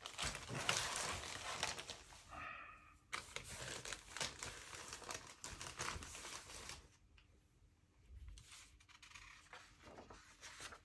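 Plastic bags of model kit sprues crinkling as they are handled and pushed aside, with a pause about seven seconds in, then lighter rustling of paper as the instruction booklet is opened.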